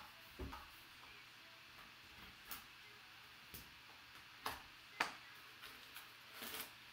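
Scattered small clicks, taps and crinkles from handling the taped end of a sealed bat tube as it is worked open, with the sharpest click about five seconds in and a brief rustle near the end.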